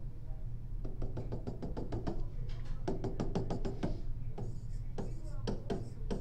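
A quick series of sharp taps from a pen on a tablet screen as dashed lines are drawn, then sparser taps and strokes as numbers are written, over a steady low hum.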